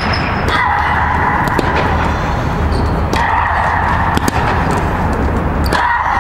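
Tennis ball being hit and bouncing during a rally, sharp knocks about every second or so, over a steady loud hum.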